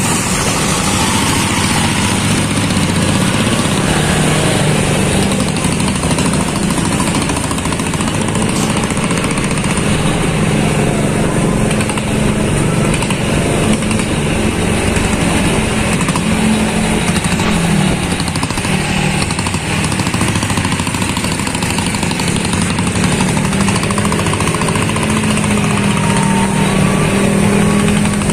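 Motorcycle engine running steadily at riding speed, mixed with wind noise from moving along.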